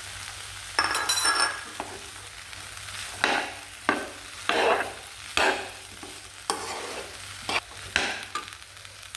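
Vegetables and beef frying in butter in a pot, stirred with a utensil: a run of about ten stirring strokes over a light sizzle.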